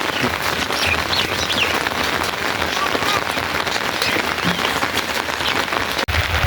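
Steady rain falling, with a small bird chirping a few times in the first couple of seconds.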